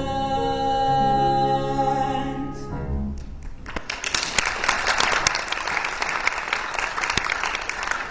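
The final held chord of a sung song, with its accompaniment, ends about three seconds in. An audience then breaks into applause.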